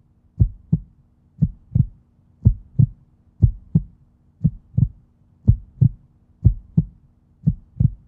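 Heartbeat sound effect: paired lub-dub thumps about once a second, over a faint steady low hum.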